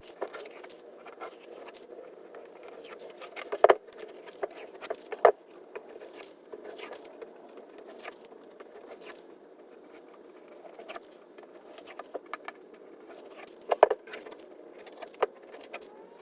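Tape being peeled off a freshly glued wooden box, with rustling and scattered sharp clicks and knocks as pieces come away and the work is handled; the loudest knocks come a few seconds in and again near the end.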